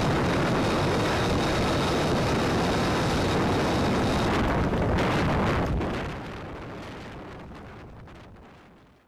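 Steady rushing wind noise on the microphone aboard a ship at sea, fading away over the last few seconds.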